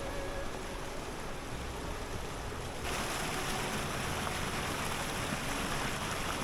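Steady rush of water from a snowmelt-swollen river or waterfall, turning suddenly louder and brighter about three seconds in.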